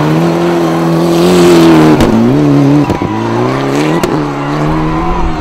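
Rally car engine at high revs as it powers through a loose dirt corner, its pitch dropping and climbing again twice with a sharp crack at each change, over a hiss of thrown gravel.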